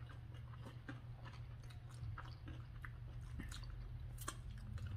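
Two people chewing sushi rolls close to the microphone: soft, wet mouth clicks and smacks scattered through, over a low steady hum.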